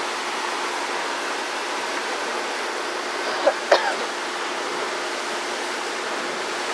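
Steady, even rushing noise like running water or a fan, with two brief high, wavering squeaks about three and a half seconds in.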